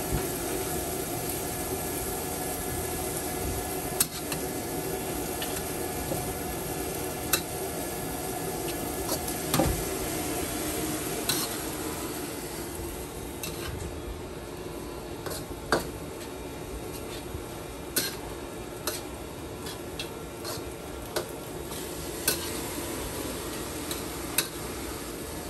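Noodles stir-frying in a wok: a steady sizzle, with a metal spatula scraping and striking the pan every second or few, about ten sharp clanks in all.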